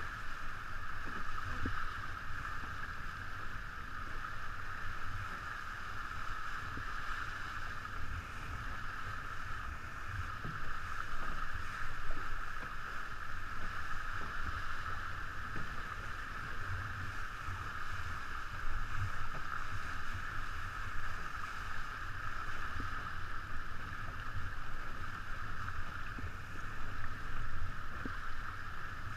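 Steady rush of wind and water past a 49er skiff sailing at about 11 to 12 knots, a continuous hiss over a low, fluttering wind rumble.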